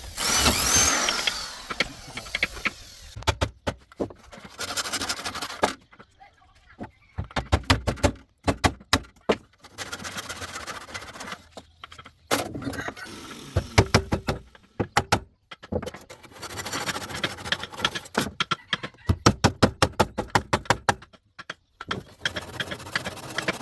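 Woodworking workshop sounds: short bursts of a power tool, the first with a thin whine that rises and falls, between runs of sharp knocks.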